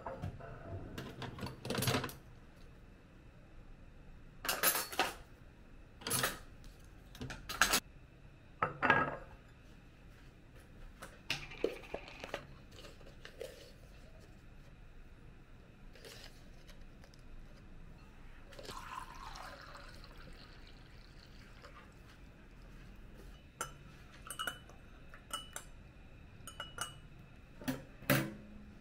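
Light clinks and knocks of dishes and a glass being handled. Water is poured into a glass about two-thirds of the way through.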